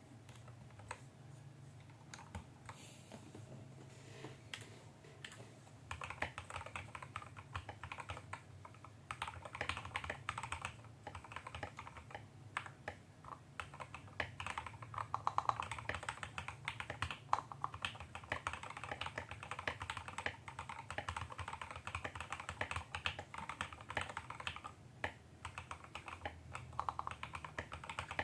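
Typing on a GK68X mechanical keyboard with a brass plate in a wooden case, fitted with lubed JWK Yellow linear switches and XDA keycaps. The keys clack in quick runs. There are only a few scattered keystrokes at first, and steady fast typing starts about six seconds in, over a low background hum.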